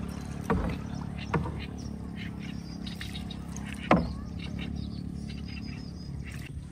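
A small engine running steadily, with three sharp knocks, the loudest about four seconds in. Birds chirp faintly behind it.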